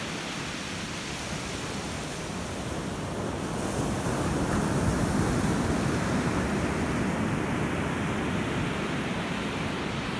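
Ocean waves washing on the shore, a steady rushing surf that swells about four seconds in and slowly eases back.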